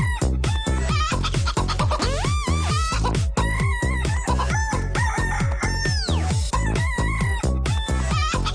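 Techno track built from chicken clucks and rooster crows laid over a steady, driving kick-drum beat, with drawn-out crow-like calls that rise and fall a few times.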